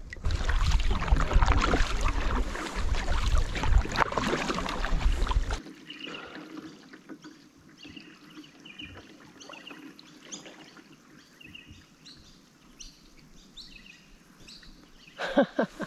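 A canoe being paddled on flooded river water. A loud rushing noise with a heavy rumble runs for about the first five seconds and stops abruptly. After that come quieter water and paddle sounds, with birds chirping in many short calls.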